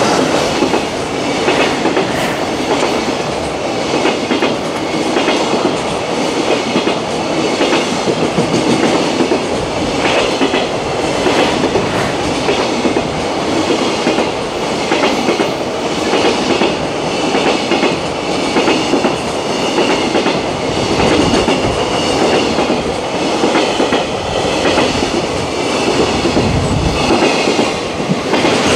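Container wagons of a JR Freight train, hauled by an EF210 electric locomotive, passing through a station at speed: a continuous loud rumble of wheels on rail with a steady, repeating run of clacks as the wagon wheels cross rail joints.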